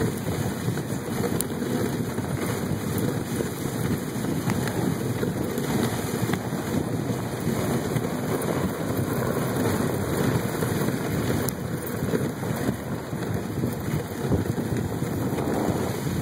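A dog sled running at speed over a packed-snow trail: a steady rushing noise of the sled on the snow and wind on the microphone.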